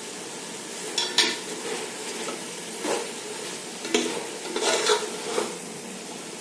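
Chicken, onions and spices frying in oil and ghee with a steady sizzle, while a utensil stirs them, scraping against the pan about six times.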